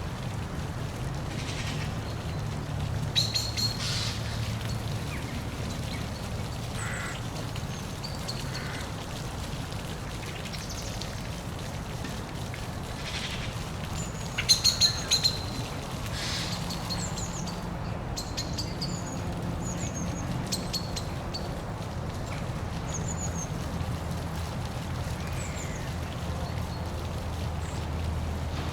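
Steady low rush of a park waterfall, with small birds chirping in short high notes. Ducks quack loudly, a pair of calls early on and a quick run of four about halfway through.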